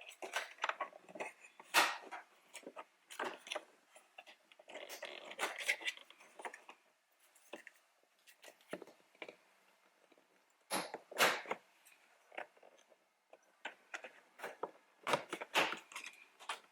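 Plastic interior door handle trim being worked loose by hand: irregular sharp clicks and snaps, with a stretch of scraping about five seconds in.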